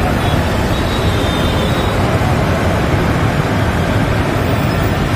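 Steady rush of wind and road noise on the microphone of a moving motorbike, with the bike's engine running under it.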